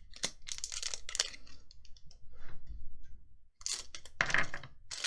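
Magic: The Gathering trading cards being handled and sorted by hand: a run of light, irregular clicks and rustles.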